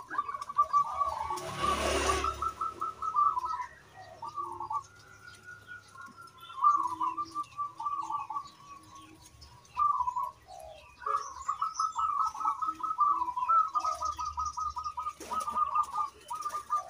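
Zebra dove (perkutut) singing its rapid, stuttering cooing song in several trilled phrases, one long unbroken phrase in the middle. A brief rushing noise sounds about two seconds in.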